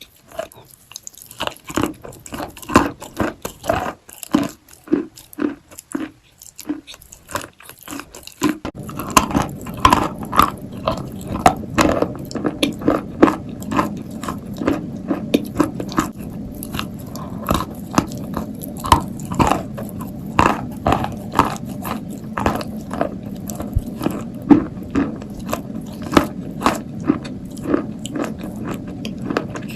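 Dry, powdery Turkestan white clay being bitten and chewed close to the mic: a long run of crisp, crumbly crunches, a few each second. About a third of the way in, a steady low hiss rises under the crunching.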